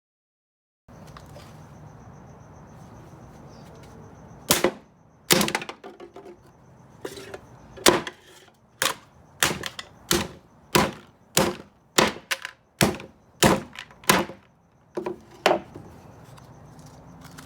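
Hammer blows crushing aluminium soda cans: about fifteen sharp, loud strikes in a fairly even rhythm, roughly one every two-thirds of a second, starting about four seconds in.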